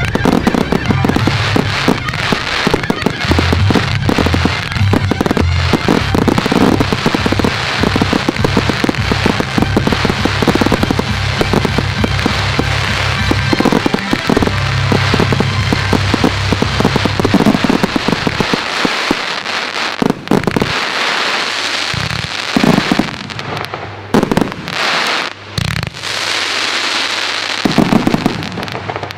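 Fireworks display: a dense barrage of bangs and crackling bursts, thinning about two-thirds of the way through into separate loud single bangs.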